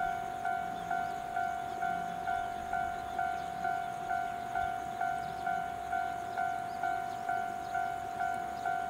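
Japanese level-crossing warning bell ringing, an electronic ding repeated evenly about twice a second, each strike fading slightly before the next. It is the crossing's alarm for an approaching train.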